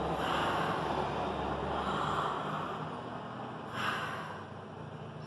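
A girl doing deliberate, forced yawns as a relaxation exercise: a long breathy yawn for about three seconds, then a short sharp breath about four seconds in.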